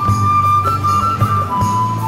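Background music in a traditional style: a flute holds long notes, stepping between pitches, over a steady low accompaniment with soft regular beats.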